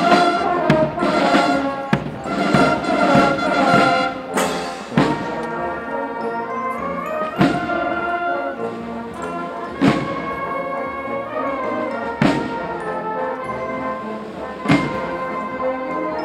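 Brass band music with held notes and a drum struck about every two and a half seconds, busier with rapid beats in the first few seconds.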